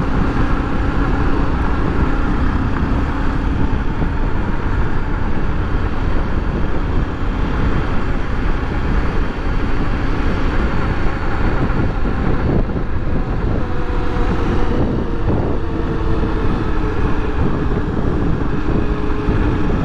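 Honda XRE300's single-cylinder engine running under way, with steady wind rush over the microphone. The engine note sits higher in the second half as the bike picks up speed.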